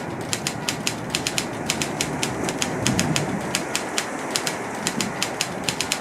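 Typewriter keys striking in quick, uneven succession, several keystrokes a second, over a steady rumbling noise.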